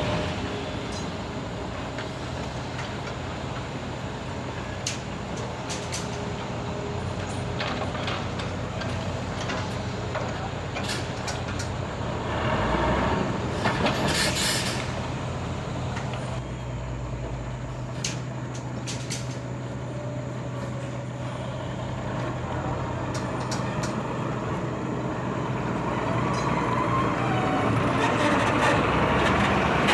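Heavy diesel construction machinery running steadily, with scattered knocks, a short air-brake hiss about halfway, and the engine noise growing louder near the end.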